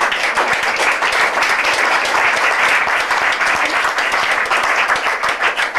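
Applause from a roomful of people: many hands clapping at once in a dense, steady patter.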